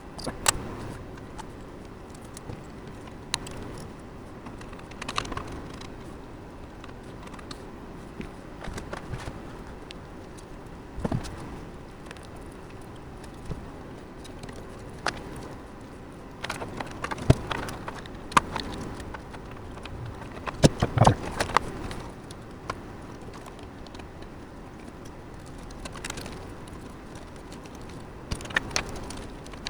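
Scattered clicks, taps and knocks of computer hardware being handled and fitted, busiest in a cluster a little past the middle, over a steady background hiss.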